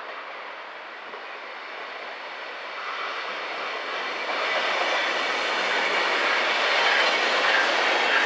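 A DB Class 101 electric locomotive hauling an Intercity arrives at the station. Its rolling noise grows steadily louder as the train approaches.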